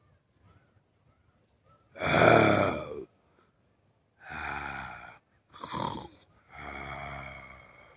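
Four hoarse, rasping vocal calls in a row, each about a second long, the first the loudest and falling in pitch.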